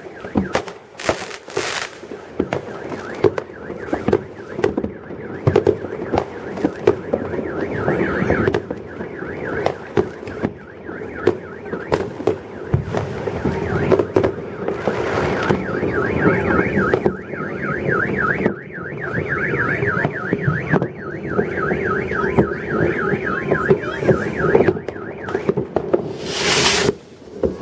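A car alarm warbling in a fast repeating pattern, most plainly from about halfway through, amid the bangs and crackle of fireworks, with a loud hissing burst near the start and another near the end.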